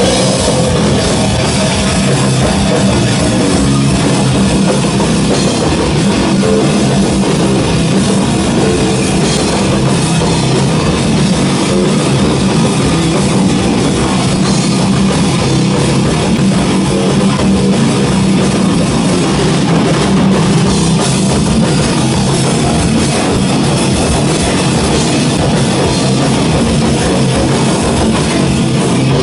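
Extreme metal band playing live, with distorted electric guitars and a drum kit, loud and unbroken.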